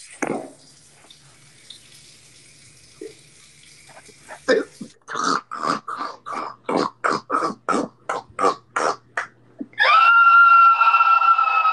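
A person peeing: a steady hiss of the stream for about four seconds. Then a run of short grunting vocal bursts, about three a second, and a loud high-pitched scream held for about two seconds near the end.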